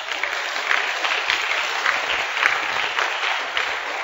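A congregation applauding.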